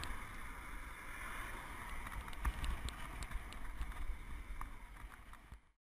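Steady rushing wind and road noise on a bike-mounted camera's microphone while riding, with low rumble and a few light clicks. It tapers off and cuts out near the end.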